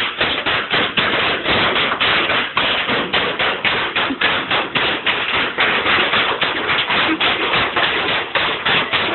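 Bubble wrap popping under stomping and running feet: a dense, unbroken run of sharp pops, many every second, with no let-up.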